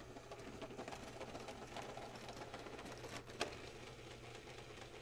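HO-scale Thomas the Tank Engine model locomotive and boxcar running along model railway track: a faint, steady small-motor whirr and wheel rattle, with one sharper click about three and a half seconds in.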